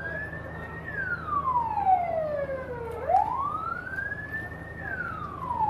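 Emergency vehicle siren wailing, its pitch climbing for about two seconds and then sliding slowly back down, in cycles of about four seconds.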